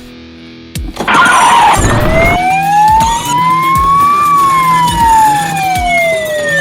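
Police siren sounding one slow wail that rises for about two seconds, then falls gradually. It is preceded by a brief rushing noise about a second in.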